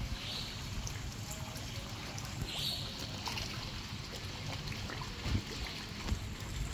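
Light water splashing and trickling at the surface of a koi pond as a large koi mouths at a hand held in the water, with a couple of brief brighter splashes and a few low thumps near the end.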